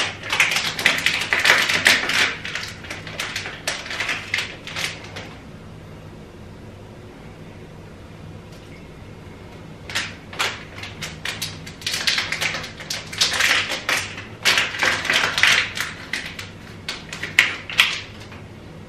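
Hands crinkling small plastic bags and splashing in a sink of soapy water while golden pheasant heads are unpacked and put in to soak. It comes in two busy stretches of crackling and splashing with a lull of about five seconds between them.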